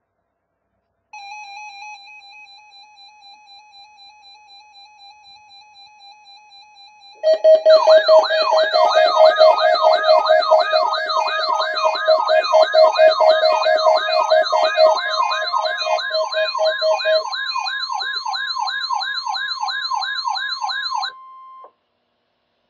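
Weather radio alert tones for the weekly test: a faint wavering electronic tone, then from about seven seconds in a loud warbling, siren-like alarm. The alarm has a fast-pulsing low tone and quickly rising-and-falling tones over a steady high warning tone. It all cuts off shortly before the end.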